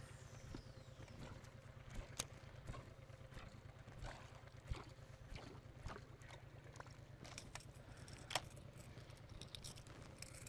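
Faint steady low hum in a fishing boat, with scattered light clicks and taps at irregular intervals and one sharper knock a little past the middle.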